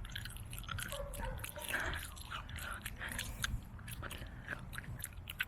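Close-up chewing of liquid-filled Bubbaloo bubblegum: a quick run of wet mouth smacks and clicks.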